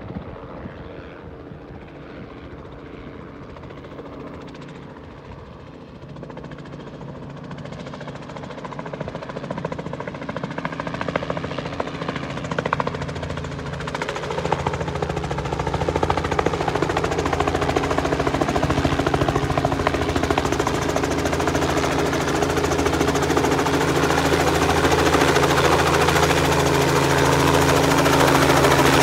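Small two-bladed helicopter approaching and descending low over the field, its rotor and engine growing steadily louder as it comes close, with a steady low rotor beat strongest in the second half.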